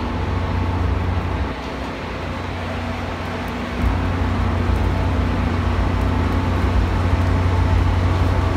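Amtrak GE P42DC diesel-electric locomotive idling at the platform, a steady low engine drone that grows louder about four seconds in.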